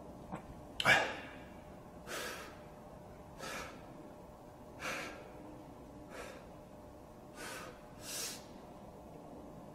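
A man breathing hard through dumbbell front raises: short, forceful breaths about every one to one and a half seconds, one per lift. The loudest is a sharp burst about a second in.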